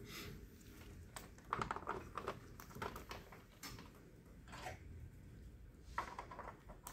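Faint, scattered plastic clicks and taps from an HP M751 printer's tray 1 pickup roller and its hinged roller cover being handled and snapped back into place.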